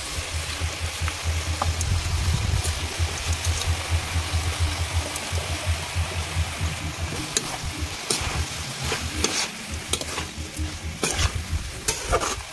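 Vegetables sizzling in hot oil in a metal kadai as wet broken wheat and red lentils are tipped in. From about halfway, a metal spatula stirs and scrapes against the pan in quick strokes. A low steady hum sits underneath.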